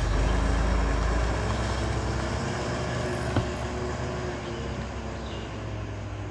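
Heavy 12-wheel diesel truck's engine running with a deep, steady drone that slowly fades; a single sharp click about three and a half seconds in.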